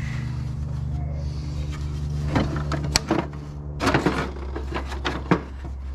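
Metal parts of a table saw's blade and motor assembly clanking and rattling as they are worked loose from the housing, in irregular knocks and clicks from about two seconds in, over a steady low hum.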